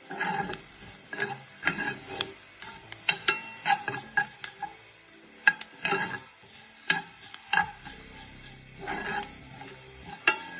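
Spatula stirring and scraping chopped ginger around a stainless steel sauté pan as it browns: irregular scrapes and knocks against the pan, several a second with short pauses, some leaving a brief metallic ring.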